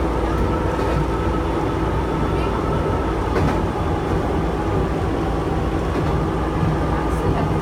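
Chichibu Railway electric train running, heard from inside at the front of the car: a steady rumble of running noise with a faint high steady tone and a few light clicks from the wheels over the rails.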